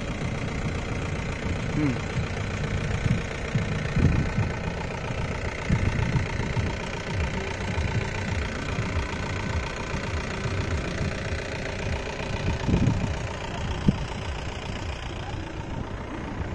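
Wind buffeting the microphone in irregular low gusts, over a steady engine hum.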